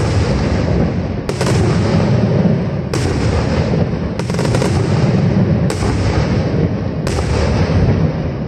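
Aerial firework shells bursting overhead: six loud bangs about a second and a half apart, over a continuous rumble of echoing detonations.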